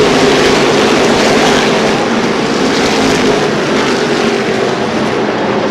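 NASCAR Whelen Modified race cars' V8 engines running hard around a short oval, a loud steady drone of several engines at once, their pitches drifting slightly as the cars pass.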